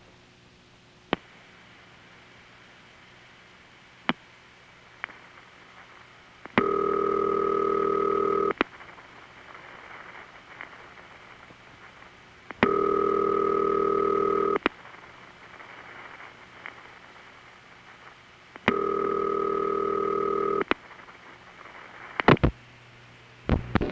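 A 1970s Bell System long-distance call heard down the line. A few switching clicks come as the call is routed through a 4A toll switch, with no multifrequency tones. Then the ringback tone sounds three times, each ring about two seconds on and four seconds off, and a cluster of clicks comes near the end.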